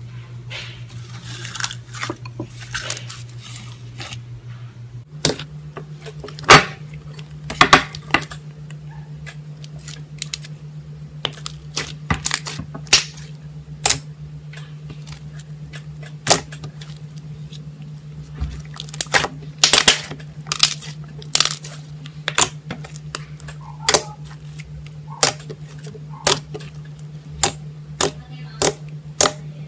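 White slime mixed with pink foam beads being squeezed and poked by fingers, giving sharp, irregular pops and clicks, sometimes two or three in quick succession.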